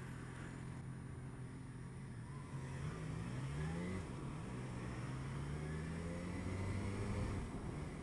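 Motorcycle engine pulling away through traffic, its pitch climbing, dropping briefly for a gear change, then climbing slowly again before the throttle is eased near the end.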